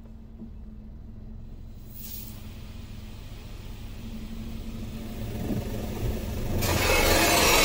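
Touchless car wash machinery heard from inside the car: a low rumble with a steady hum that slowly grows louder. Near the end a loud, even rushing hiss starts suddenly as spray or blown air reaches the car.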